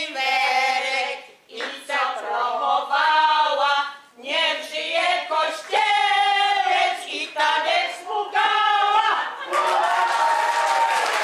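A small group of women singing a song together from their song sheets, in phrases of held notes with short breaks between them. Near the end they finish on a long held note as applause breaks out.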